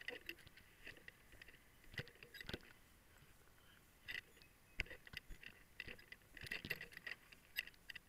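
Faint, irregular clicks and rattles of a firefighter's gear jostling as he walks, over a low hiss.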